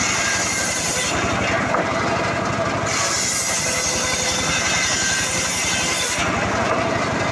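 Engine-powered saw running steadily while cutting mahogany wood, with a fast, even engine pulse underneath. The high-pitched part of the cutting noise drops away twice, each time for a second or two.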